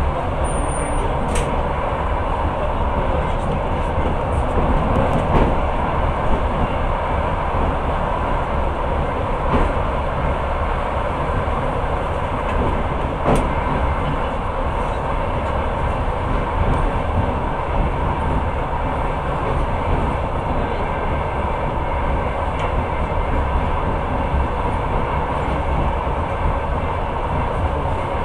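Long-distance passenger train running, heard from inside the carriage: a steady rumble of wheels on rails with a few sharp clicks.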